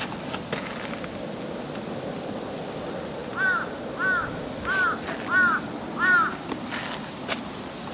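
A crow cawing five times in quick succession, about two-thirds of a second apart, starting about three and a half seconds in, over steady outdoor background noise.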